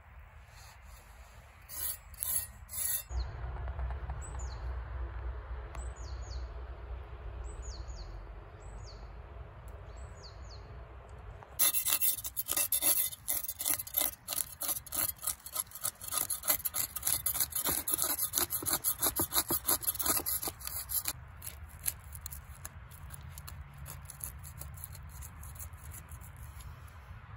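Chef's knife scraping the scales off a whole stone bass on a wooden cutting board: quick, rough, repeated scraping strokes that start suddenly about a third of the way in and run for about ten seconds.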